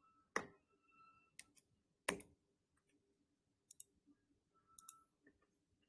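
Near silence broken by about seven short, sharp clicks, scattered irregularly, with two quick pairs in the second half.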